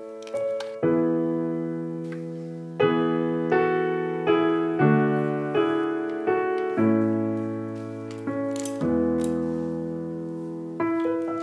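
Slow background piano music: chords struck every second or two, each left to ring and fade.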